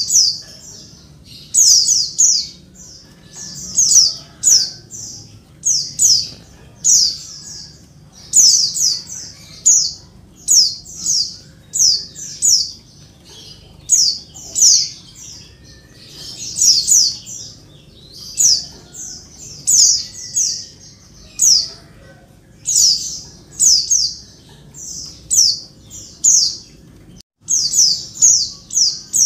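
Female white-eye (pleci) calling noisily: short bursts of rapid, high chirps, repeated about every second or two.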